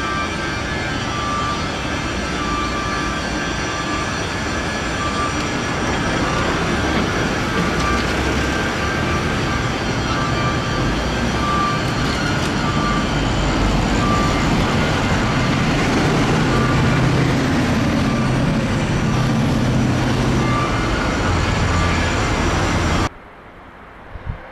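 Loud, steady noise of shipyard machinery and heavy vehicles, with a high beep repeating on and off and a deeper rumble swelling in the second half. It cuts off suddenly a second or so before the end.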